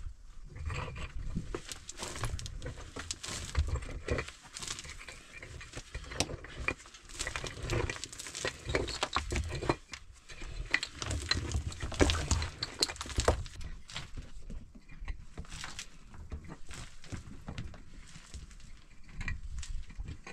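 A short-handled spade digging and scraping into dry dirt and gravel, with irregular scrapes, knocks and small stones clattering.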